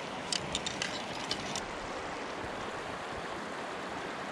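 Steady rush of a shallow river's current over stones, with a handful of short sharp clicks in the first second and a half.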